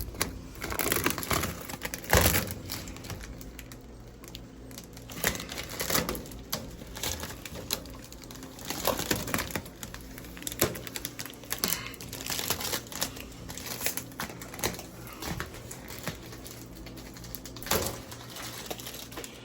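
Blue protective plastic film being peeled and picked off a stainless steel microwave's panels: irregular crackling and crinkling with sharp clicks.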